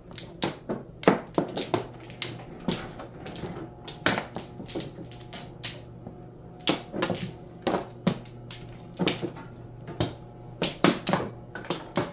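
Mahjong tiles clacking as players draw, discard and set them down on the table: sharp, irregular clicks, some in quick double or triple clusters, over a low steady hum.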